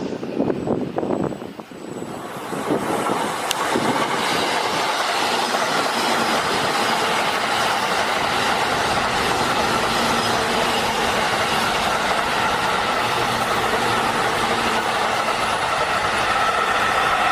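A JR East E531 series electric train running through at speed on the Joban Line rapid tracks, a steady, loud running noise of wheels on rail with faint steady tones in it. It swells up about two and a half seconds in. Before that, wind buffets the microphone.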